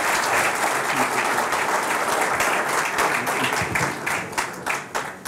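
Audience applauding, a dense spatter of many hands clapping that thins out and fades near the end.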